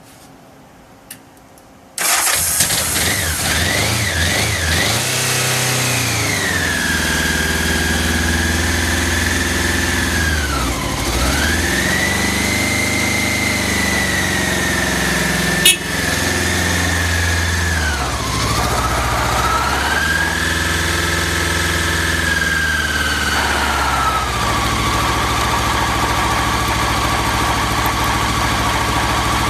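Engine of a 1984 six-speed vehicle starting at once on the electric starter about two seconds in, then running at a raised speed that sags sharply twice and picks up again before settling to a steady lower idle near the end; the uneven running fits the unstable idle noted for it. A single sharp click partway through.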